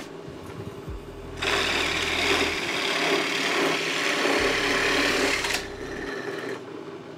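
JIB DP15VL benchtop drill press running, with a 35 mm Forstner bit boring into a spruce block: the motor's steady hum, then about four seconds of loud cutting as the bit chews through the wood, easing back to the motor's hum near the end.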